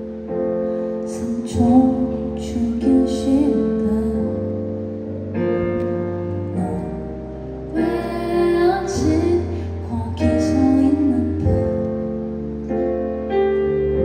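A woman singing a slow song, accompanying herself with piano chords on a stage keyboard.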